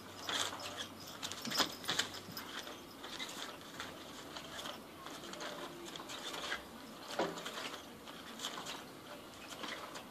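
Battery-powered Cat's Meow cat toy running: its geared motor clicking and rattling as the hidden wand sweeps around and rustles against the fabric cover, in irregular clicks and scrapes.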